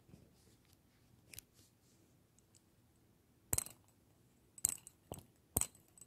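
Light-up LED fidget spinner being handled and flicked: a faint click about a second in, then four or five sharp, bright clicks in the second half.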